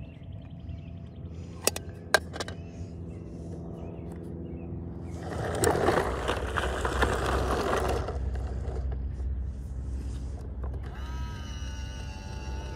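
Small plastic toy trash bins clicking twice as they are set down, then a loud rushing noise lasting about three seconds, and near the end a sustained sound of several held tones over a low rumble.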